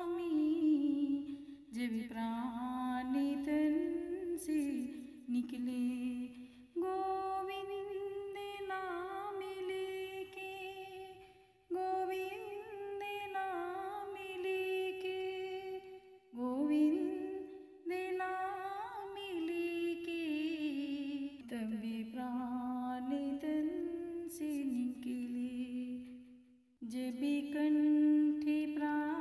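A woman humming the melody of a Hindi devotional bhajan without accompaniment, in long held and gliding phrases with short breaks between them.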